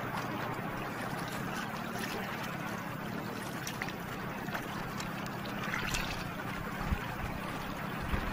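Small waves lapping and trickling against a sea kayak on calm water, with a few faint taps.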